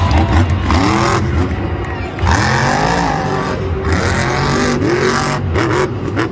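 Monster truck's supercharged V8 revving hard in repeated surges, its pitch sweeping up and down under a deep rumble as the truck wheelies and jumps.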